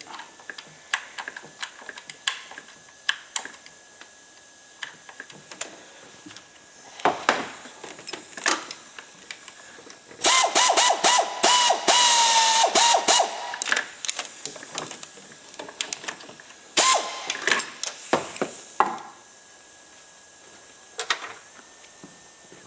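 Metal tools clicking and clinking, then a ratchet wrench running for about three seconds with a steady whine under its rapid clicking, and again briefly a few seconds later, as the 8 mm studs on a Rover K-series engine are run in.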